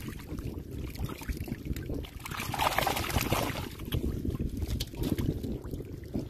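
Hands splashing and sloshing in shallow muddy water while groping for fish, with a louder stretch of splashing for about a second near the middle. A low wind rumble on the microphone runs underneath.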